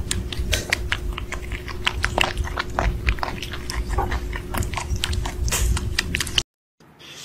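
Newborn kittens suckling from their mother cat: quick wet smacking clicks, several a second, over a steady low rumble. The sound stops abruptly about six seconds in.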